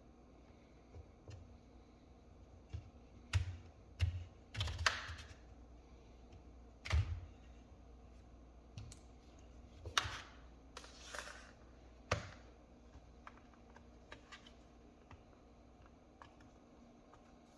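Sparse, irregular clicks and knocks with two short scraping sounds, from hands handling a laptop and its small parts on a hard surface.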